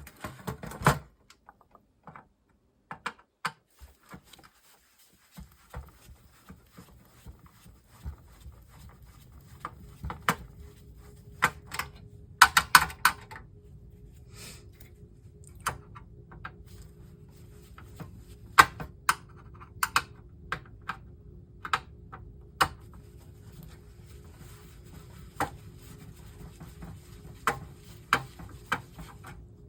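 Irregular clicks and knocks of hard plastic and metal parts being handled and pried during the teardown of a CRT computer monitor, with a quick flurry of clicks about twelve seconds in.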